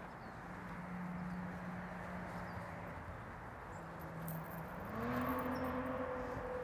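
Steady hum of a motor vehicle engine, stepping up in pitch and growing slightly louder about five seconds in.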